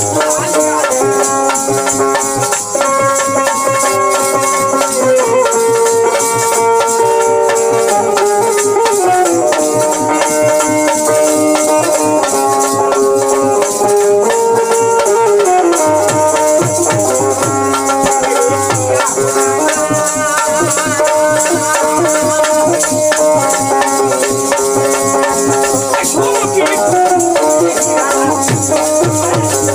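Bhojpuri nirgun folk music played live: harmonium holding long chords over dholak drumming, with a steady rattling percussion running throughout.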